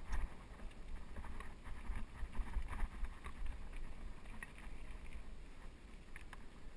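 Mountain bike rolling down a rocky dirt singletrack: tyres on dirt and loose stones, with frequent short rattles and clicks from the bike over bumps, busier in the first few seconds, over a steady low rumble of wind and motion on the microphone.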